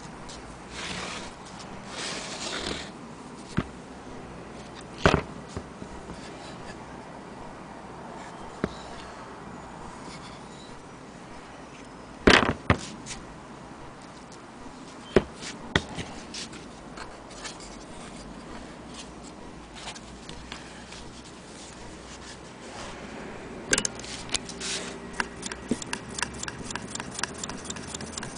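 Scattered knocks and clicks from an antique Willcox & Gibbs sewing machine being handled. About three-quarters of the way through, a fast, even ticking starts, several ticks a second, as the machine's mechanism is turned over.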